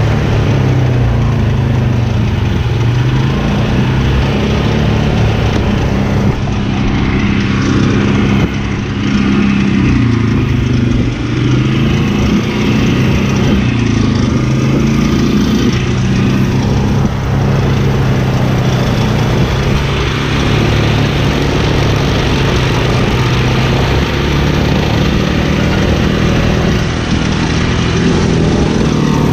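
Dirty Hand Tools pull-behind brush mower running steadily while mowing tall grass, its engine note wavering slightly in pitch.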